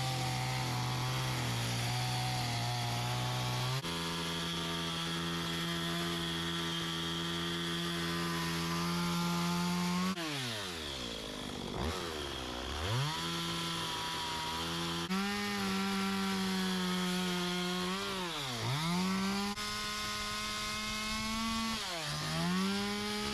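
Chainsaw carving into a wood slab, its engine held at high revs, then dropping off and revving back up three times in the second half.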